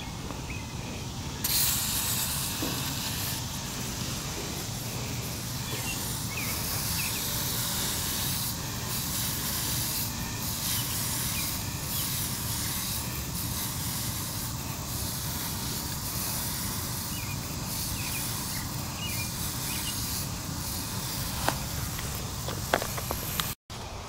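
Hand pump-up sprayer spraying onto an air conditioner's condenser coil through the side louvers: a steady hiss that starts about a second and a half in and cuts off suddenly just before the end.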